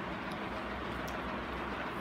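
Steady background noise with a few faint, soft clicks.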